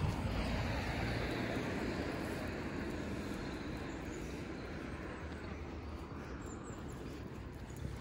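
Road traffic hiss that slowly fades over the few seconds, over a low rumble of wind on the phone's microphone.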